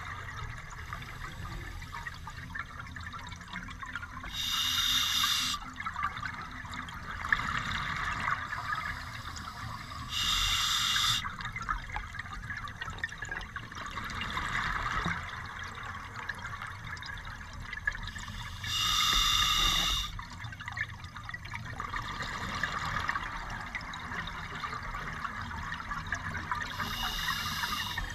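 A scuba diver breathing through a regulator underwater: four loud hisses of about a second each, several seconds apart, with bubbling and water noise between them.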